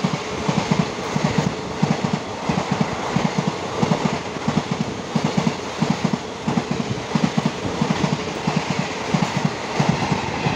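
Coaches of an express passenger train running past at speed, the wheels clattering over rail joints in quick double knocks about twice a second over a steady rushing noise.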